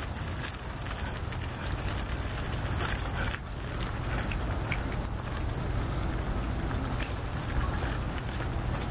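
A steady low rumble and hiss of background noise, with faint, scattered short crunches and clicks as a young river otter chews its food.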